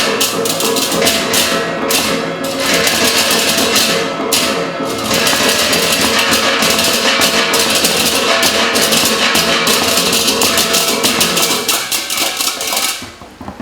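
Percussion-led ensemble music: a fast, dense run of struck notes over sustained pitched tones, falling away and breaking off near the end.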